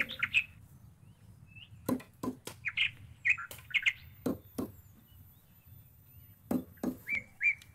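A bird chirping in short repeated notes, with sharp knocks scattered through, mostly in close pairs about a second or two apart.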